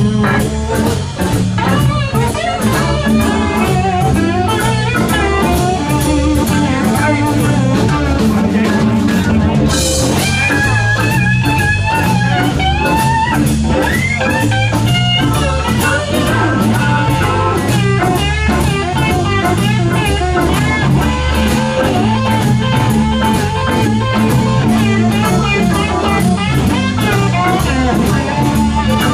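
Live blues-rock band playing an instrumental passage on electric guitars and drum kit. From about ten seconds in, a lead guitar line with bent, wavering notes rises above the band.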